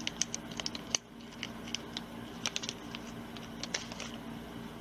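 Scattered light clicks and crinkles of hands handling a small metal ruler and square gauge, over a faint steady hum.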